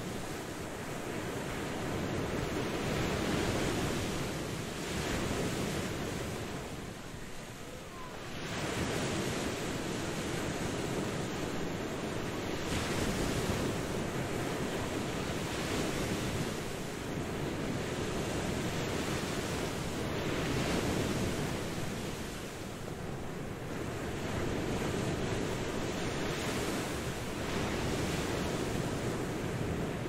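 Waves washing onto a beach: a steady rush of surf that swells and eases every few seconds, with a deeper lull about seven seconds in.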